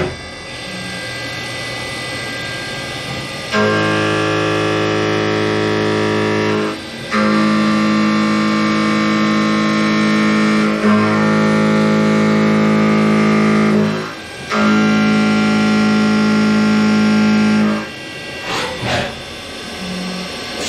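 Haas CNC vertical milling machine's end mill cutting a metal block held in a vise. About 3.5 s in, a loud, steady, pitched cutting whine sets in and runs in four stretches with short breaks between them, as the tool cuts the outer profile and a circular pocket. It stops near the end, followed by a couple of knocks.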